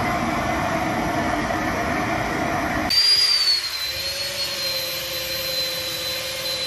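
A steady rushing hiss for about three seconds, then cut off sharply. An electric drill follows, running with a steady high whine as it bores into a timber plank.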